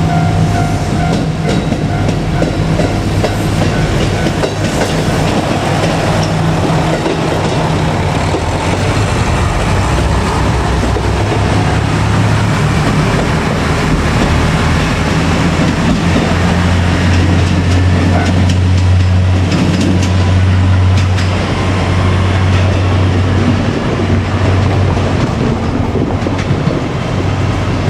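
KiHa 200 diesel railcar running over a level crossing: a steady low diesel engine drone with wheels clacking over the rail joints. The drone is loudest about two-thirds of the way through.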